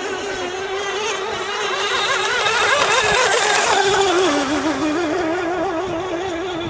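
Music: a singer holding notes with heavy vibrato, as in opera, swelling louder in the middle and moving to a lower note about four seconds in.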